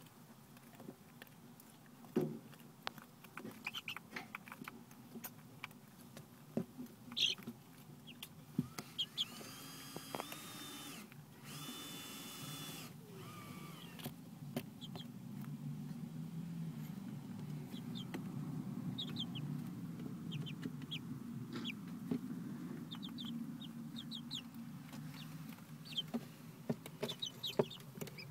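Young, half-feathered chickens giving short, high peeps and chirps, with sharp taps and scratches right at the microphone as they peck and push against it.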